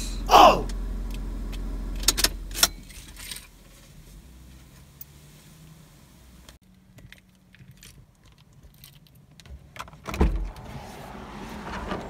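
Parked car's engine idling and then switched off, its hum dying away a few seconds in after a couple of sharp clicks from the controls. About ten seconds in comes a loud knock of the car door being opened as the driver gets out, followed by handling noise.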